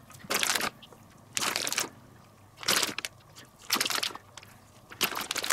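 Plastic bag of shredded cheese crinkling in five short rustles, about one a second, as handfuls are pulled out and sprinkled.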